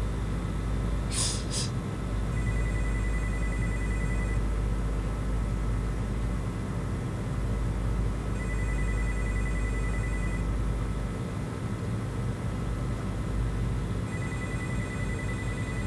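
An electronic phone ring on an unanswered call: three rings of about two seconds each, roughly six seconds apart, with a steady low hum underneath.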